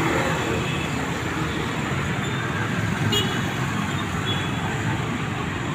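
Steady road traffic noise from a busy city street, with a faint click about three seconds in.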